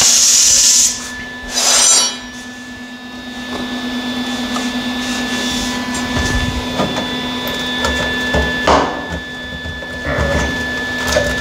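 Cut-off tool cutting the sheet-metal fender stops about a second in, with one short burst more just after. Then come light knocks and handling of the sheet metal over a steady hum.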